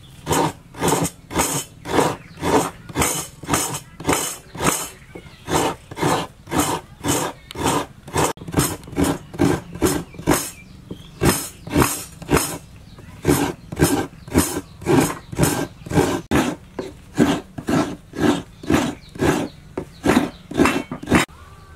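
Coconut half scraped hard against a hand coconut grater, a steady run of rasping strokes at about two a second as the white flesh is shredded.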